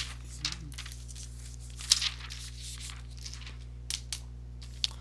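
Scattered rustling and crinkling noises with a few sharp clicks, the loudest about two seconds in, over a steady low electrical hum. A brief murmur of voice comes about half a second in.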